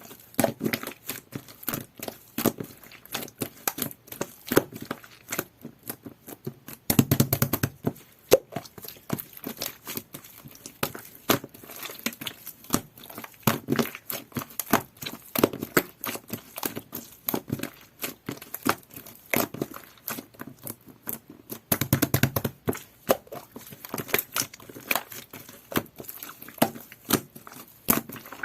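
Jelly-textured slime being pressed, squished and stretched by hand, giving dense, irregular clicking and crackling pops, with heavier, fuller presses about seven seconds in and again around twenty-two seconds.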